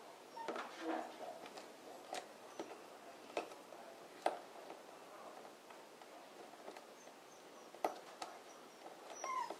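Hands pressing a self-adhesive foam sealing strip into a plastic air-intake channel: sparse light clicks and taps over soft handling noise, with a few short squeaky chirps near the start and end.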